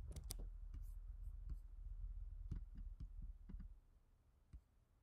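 Irregular clicks from operating a computer, about nine of them: a close pair right at the start, then scattered single clicks, the last one fainter, as a slideshow is exited and the screen recording is stopped.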